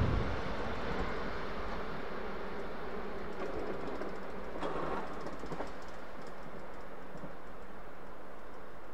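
Class 460 'Tornádo' electric multiple unit receding after passing: its rumble dies away in the first second into a steady hiss, with a few faint clicks about halfway through.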